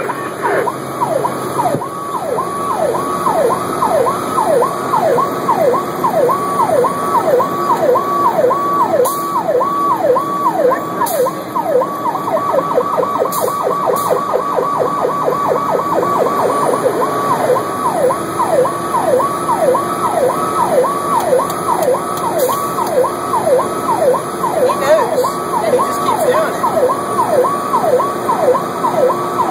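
Emergency vehicle's electronic siren in a yelp, rapid rising-and-falling sweeps just under two a second that quicken for a few seconds near the middle, heard from inside the cab over the engine's steady hum.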